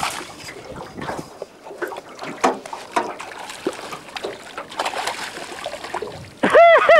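A hooked fish splashing at the surface as it is brought into a landing net beside a small boat, with water sloshing and scattered knocks. Near the end a loud, high-pitched call breaks in, its pitch rising and falling several times.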